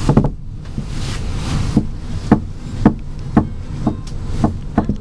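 Intercity train wheels clacking over rail joints and points, sharp knocks about two a second over the low rumble of the moving coach, coming quicker near the end.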